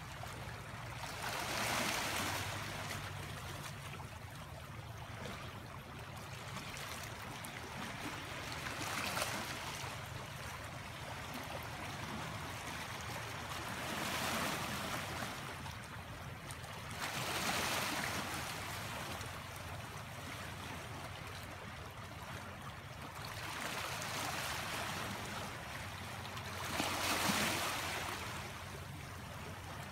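Small sea waves washing in over a rocky, pebbly shore: a steady wash of surf rising into a stronger swell every few seconds, about six times.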